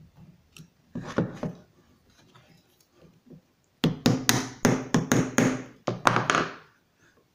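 Claw hammer tapping the centre hub of a 3D-printed plastic cycloidal gearbox, a quick run of about ten sharp taps starting about four seconds in. About a second in there is a short clatter of the plastic parts being handled.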